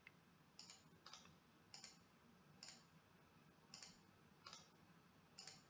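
About seven faint computer mouse clicks, spaced irregularly, against near silence.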